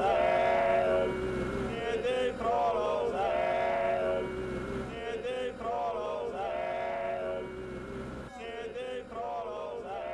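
A song with male voices singing, repeating short sung phrases about every two seconds, slowly getting quieter toward the end.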